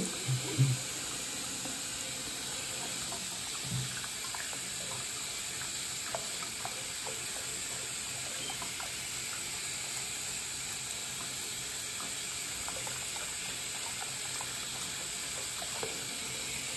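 Water running steadily from a bathroom faucet and splashing into a sink over hands and a kitten's wet fur as it is washed.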